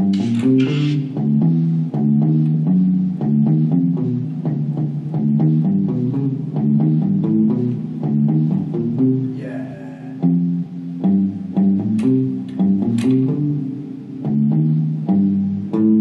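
An instrumental stretch of a rock song played on electric guitar and bass, with a low line of stepping notes and no singing.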